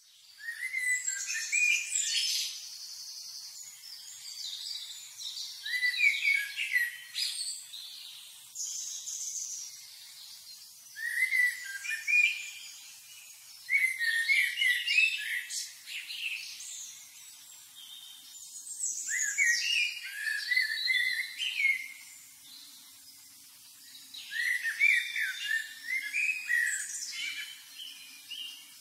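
Birdsong: phrases of quick chirps and warbling notes, each a couple of seconds long, repeated every few seconds with short pauses between them.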